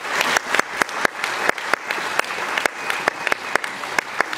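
Audience applauding, a dense patter of clapping with a few sharp individual claps close by standing out; it eases off slightly toward the end.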